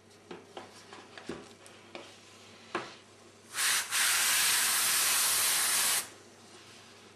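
Airbrush spraying paint: a short puff about halfway through, then a steady hiss for about two seconds that cuts off sharply. A few light clicks and taps come before it.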